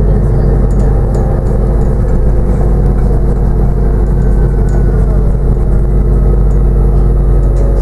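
Steady running drone of a New Routemaster diesel-electric hybrid bus on the move, heard from inside the passenger saloon: a loud, even low hum from the drivetrain with road noise, holding steady without gear changes.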